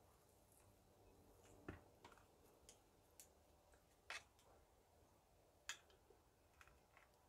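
Near silence, with a handful of faint, scattered clicks and taps from hands and a small tool working a succulent cutting into a potting pot.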